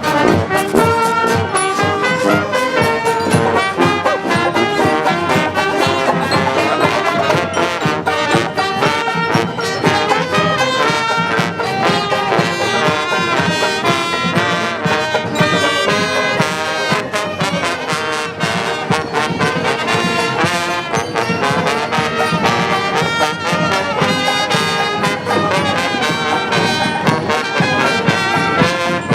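Street brass band playing, trombones and trumpets over percussion.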